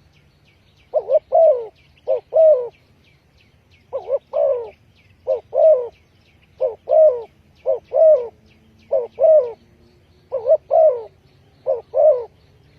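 Spotted dove cooing over and over, short phrases of two or three rising-and-falling notes about every second and a half. Faint rapid high chirping runs underneath.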